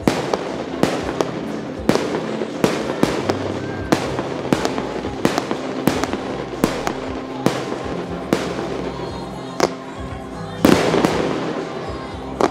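Aerial firework shells bursting in a rapid series of sharp bangs, roughly one to two a second, with a louder, dense crackling burst near the end. Music plays underneath.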